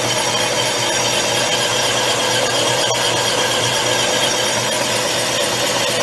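Atlas 10-inch metal lathe running slow under power feed while a homemade boring bar cuts the bore of a motorcycle cylinder: a steady cutting noise over the machine's hum. It is cutting well, with no chatter.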